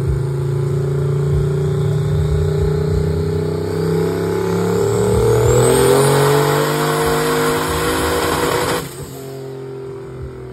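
Vintage pickup truck's engine making a full-throttle pull on a chassis dyno: it runs steadily, then climbs in revs with a rising high whine over it, and cuts off abruptly about nine seconds in as the throttle is closed, dropping to a lower, quieter running note. The pull made about 930 horsepower.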